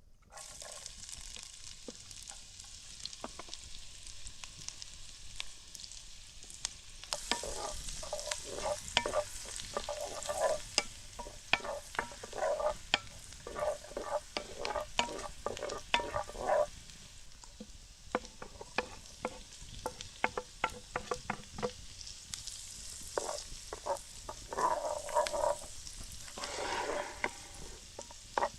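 Shrimp sizzling in butter over a wood fire. The sizzle gets louder about a quarter of the way in, and there are two spells of a utensil stirring and scraping against the cooking vessel.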